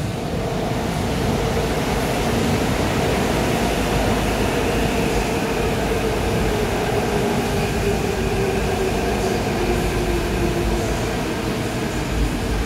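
Seoul Line 4 electric subway train passing through the station without stopping: steady rumble of wheels on rail, with a whine of several steady tones from its traction motors and inverter, some falling slightly in pitch near the end.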